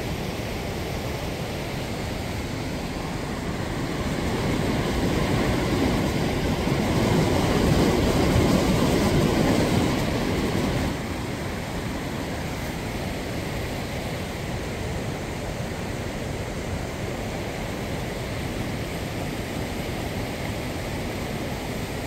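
Steady rush of a mountain stream and waterfall. About four seconds in it swells into a louder low rumble, which drops off suddenly about eleven seconds in.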